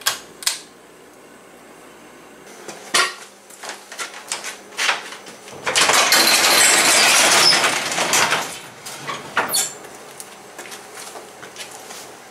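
Two sharp clicks of a pull-chain switch on a fluorescent shop light, then scattered knocks and clatters. The loudest sound is a sectional garage door being lifted open, its rollers rattling along metal tracks for about three seconds before it fades out.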